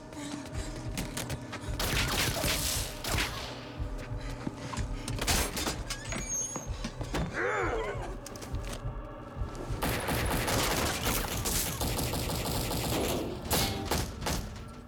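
Volleys of rapid gunfire with bullets striking and sparking off metal, as film sound effects.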